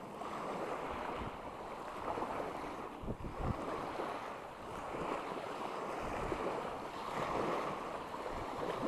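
Small sea waves washing onto the shore, the rush swelling and ebbing every couple of seconds, with some wind buffeting the microphone.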